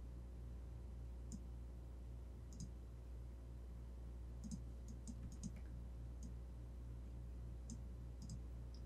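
Computer mouse button clicks, about a dozen, faint and irregularly spaced, with several close together around the middle, over a low steady electrical hum.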